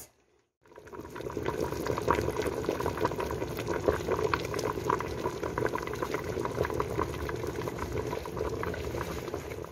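A pot of pork-leg broth with vegetables at a rolling boil: steady bubbling with many small irregular pops, starting about half a second in.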